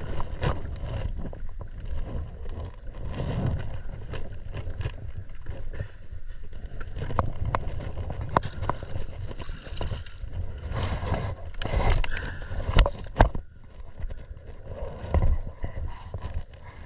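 Wind rumbling on the microphone and water slapping around a sit-on-top kayak, with scattered sharp clicks and knocks from the kayak and the angler's rod and reel gear, the loudest a cluster a little past the middle.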